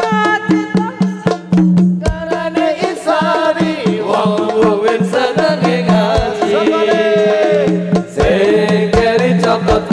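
Live sholawat singing with hadrah-style accompaniment: male voices sing long, ornamented, wavering high melodic runs (cengkok), a single voice at first and several together a few seconds in. Sharp hand-percussion strikes and deep drum thumps run under the voices, over a steady sustained keyboard tone.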